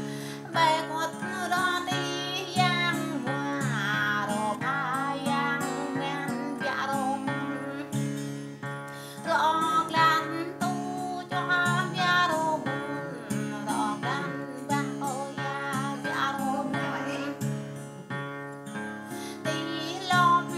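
A woman singing to an acoustic guitar played alongside her, the voice in phrases with short pauses between them.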